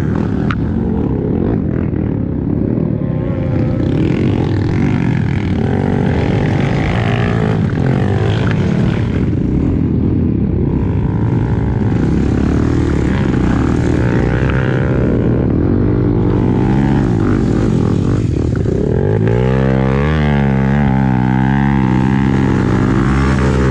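Off-road dirt bike engine running hard, its revs rising and falling continually as the bike is ridden over rough, rutted trail, with a quick up-and-down wavering of pitch near the end.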